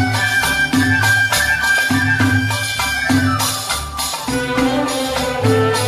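Instrumental interlude of an Arabic song, with no singing: a held high melody line over a regular bass and percussion beat.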